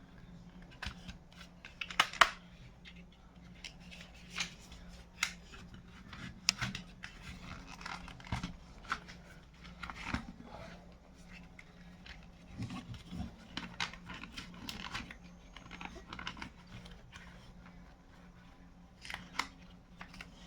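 Packaging being opened and handled during an unboxing: irregular snips, clicks and crinkles, a few of them sharp, the loudest about two seconds in.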